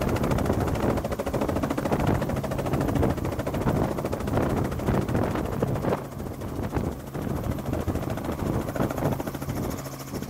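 Robinson light helicopter hovering low over a landing pad and settling down: fast rotor-blade chop over the engine's steady drone, easing off a little about six seconds in.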